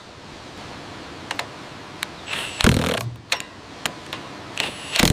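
Timber-framing work: scattered light clicks and knocks of tools and wood, with two short, louder rasping bursts, one about halfway through and one near the end.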